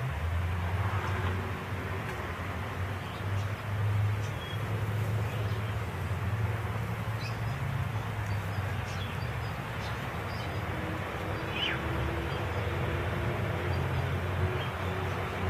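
Domestic cat purring steadily as it is stroked, a low rumble that swells and eases every second or two with its breathing.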